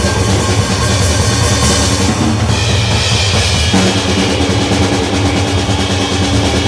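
Noise music: a loud, dense wall of noise with a heavy low rumble beneath it, its texture shifting abruptly about two and a half seconds in and again near four seconds.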